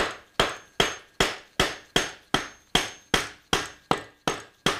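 Thirteen sharp, evenly spaced metallic taps, about two and a half a second, each ringing briefly: a tool knocking on the aftermarket NRC side cover of a Suzuki GSX-R 750 engine to work it loose. The cover has no pry lugs like the genuine Suzuki one, so it is being tapped free.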